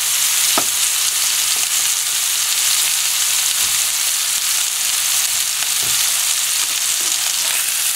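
A New York strip steak frying in a nonstick pan with diced tomato and a little sauce, a steady sizzle.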